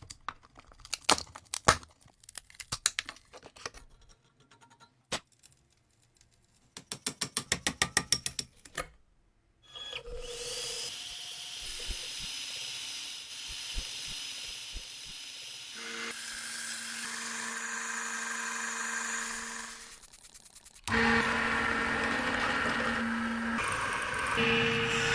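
Clicks and knocks of hand work on a cast iron bread cutter, with a fast run of regular clicks about seven seconds in. About ten seconds in, a power tool starts running steadily on the metal, with a steady tone entering partway and the sound growing louder about twenty-one seconds in.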